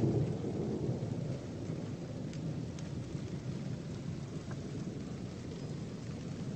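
Thunderstorm: a steady hiss of rain under a low rumble of thunder, a little louder in the first second.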